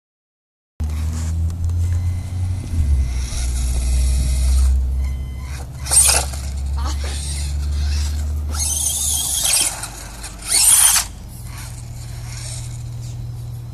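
A 1/18-scale Helion Animus 18 TR electric RC truck driving on concrete, its motor whining in three short loud bursts of acceleration about six, nine and eleven seconds in. A low rumble runs under the first two-thirds and then stops.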